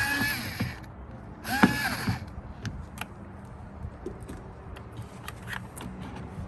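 Power drill backing out the old door speaker's mounting screws in two short runs, its motor whine rising as it spins up; then a few light clicks and knocks.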